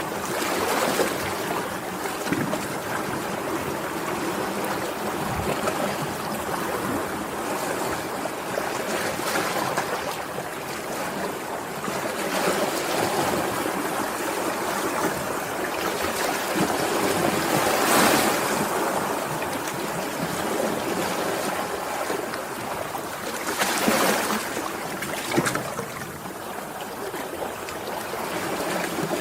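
Sea waves washing in continuously, with swells rising and falling, the biggest about 18 seconds in and again about 24 seconds in.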